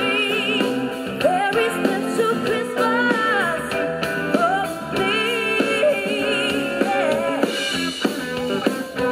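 Live band: a woman singing into a microphone, her held notes wavering with vibrato, backed by electric guitar and drums.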